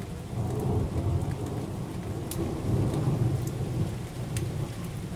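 Thunder rumbling low and rolling on, swelling about a second in and again around three seconds, over steady rain with occasional sharp drip taps.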